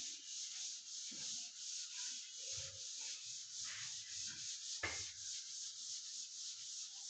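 Chalkboard duster rubbing across a chalkboard in quick repeated strokes, wiping off chalk writing, with a single knock about two thirds of the way through.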